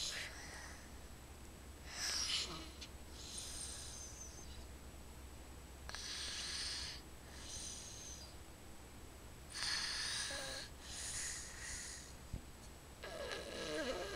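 A sleeper snoring: slow, airy breaths in and out about every three to four seconds, with a louder, lower rattling snore near the end.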